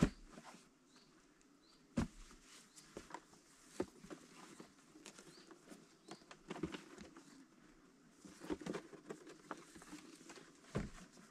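Hunting gear being handled at the open back of a car: scattered knocks and rustling, with sharp knocks at the start, about two seconds in and near the end.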